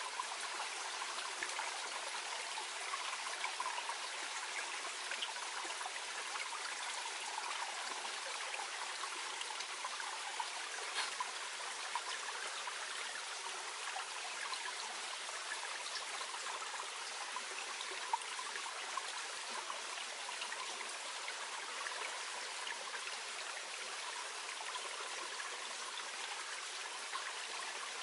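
A small mountain stream burbling and trickling steadily over stones, with a light, even flow and tiny splashes.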